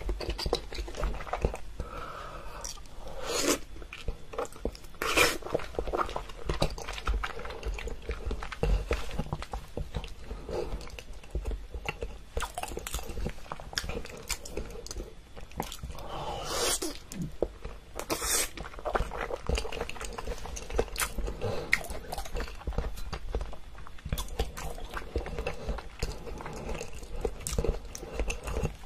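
Close-miked eating sounds: a person chewing and crunching food in the mouth, a steady run of irregular crackles and clicks with a few louder bites now and then.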